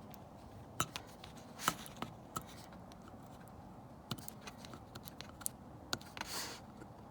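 Fingernail picking and scraping at the thin protective plastic film on an air compressor's pressure gauge: scattered small clicks and ticks, with a short rustle of film near the end.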